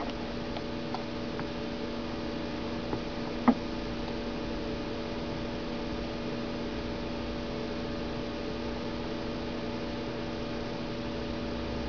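Steady electrical hum made of several constant tones over a faint hiss, with a few faint clicks, the clearest about three and a half seconds in.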